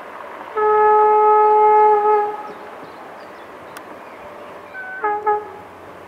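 Horn of an LDE2100 (EGM621) diesel-electric locomotive: one long, steady blast of about a second and a half that trails off briefly, then two short toots near the end.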